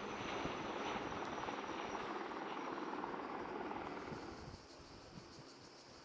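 Twin-engine propeller firefighting plane flying low overhead with a steady, fast-fluttering engine and propeller drone, loudest over the first four seconds and then dropping away about four and a half seconds in.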